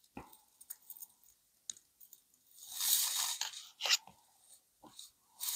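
Tarot cards being handled: a few faint clicks and taps, then a card sliding off the deck with a papery swish about three seconds in, ending in a short sharp snap.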